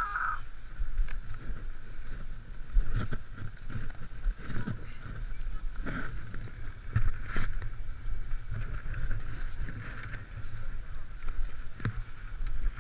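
Skis sliding and scraping over packed, groomed snow, with scattered knocks from the skis and poles and a steady wind rumble on the camera microphone.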